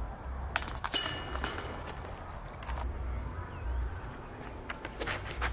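Metal jingling and clinking from a disc golf basket's chains and cage as a disc is pulled out, loudest about a second in and dying away by about three seconds. A few short knocks follow near the end.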